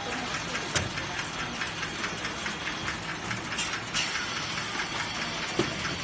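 Automatic compressor welding machine running on a factory line: a steady mechanical rattle with fast, even ticking. A few sharp clicks stand out, one near the start and two close together past the middle.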